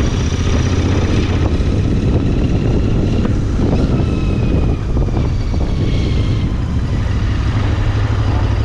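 Royal Enfield Interceptor 650's parallel-twin engine running steadily while riding, with wind and road noise over it.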